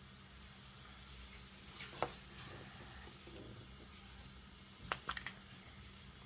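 Small sharp plastic clicks and snaps as a Kinder Joy egg's plastic shell and the yellow toy capsule inside are pried apart: one snap about two seconds in, then a quick run of four clicks around five seconds, over a faint steady hiss.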